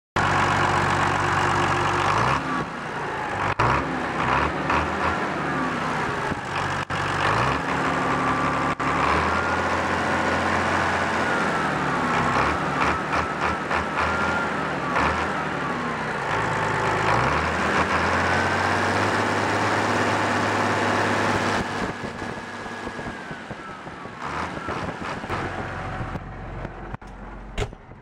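MTZ-1221 Belarus tractor's six-cylinder turbo diesel engine running and being revved up and down several times, its pitch rising and falling. It runs quieter for the last few seconds.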